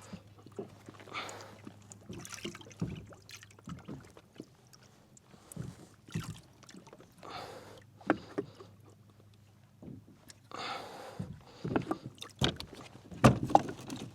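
Irregular knocks, clunks and handling noises from a kayak's pedal drive being pulled out and tangled fishing line cleared from its propeller. The noises get louder and more frequent near the end.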